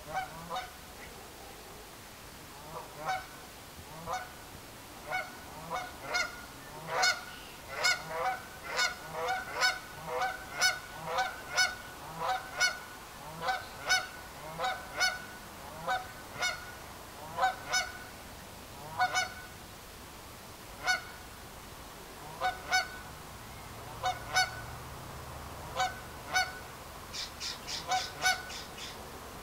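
Hen wood duck giving short, repeated calls, roughly one a second with a few pauses, and a quick run of higher-pitched calls near the end.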